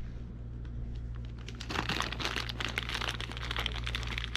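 Clear plastic parts bag crinkling as hands work it open, the crackling starting up about a second and a half in.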